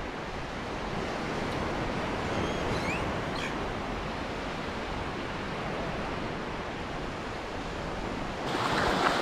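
Ocean surf washing onto a sandy beach, a steady rushing noise with some wind; it grows louder near the end.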